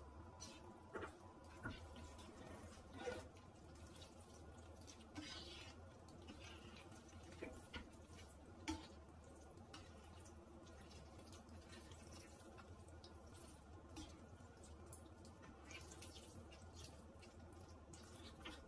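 Faint wet squelching and scattered soft clicks of silicone-tipped tongs tossing spaghetti through a creamy carbonara sauce in a frying pan, over a low steady hum.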